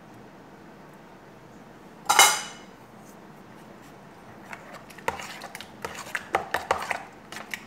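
Kitchen utensils and dishes clattering: one loud ringing clink about two seconds in, then a run of quick, irregular clicks and knocks through the second half.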